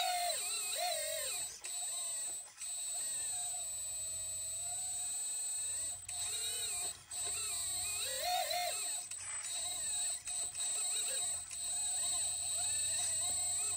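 Electric hydraulic pump of a 1/14 scale hydraulic RC excavator whining while it digs. A high steady whine sits under a lower tone that glides up and down as the controls are worked, and the sound dips briefly a few times.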